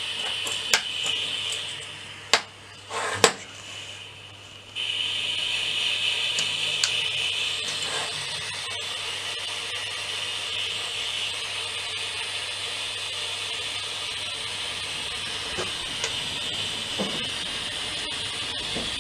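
Dremel Versatip butane soldering iron burning with a steady gas hiss as its tip heats up. The hiss drops away for a few seconds near the start, with a few sharp clicks, then comes back steady.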